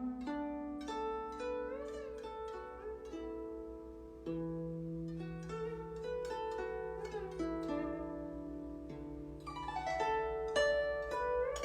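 Guzheng played solo: single plucked notes that ring on, several of them bent up and down in pitch by pressing the strings. Near the end the plucking grows faster and denser.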